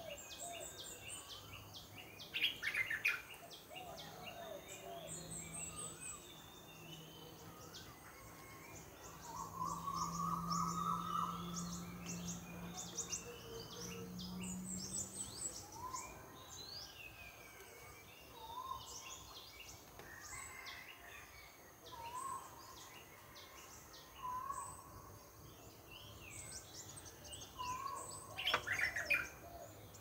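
Several wild birds calling and chirping together, with high trills and quick sharp notes, one bird repeating a short rising whistle about every two seconds in the second half. A low steady hum runs under the calls for several seconds in the middle, and bursts of louder calls come near the start and near the end.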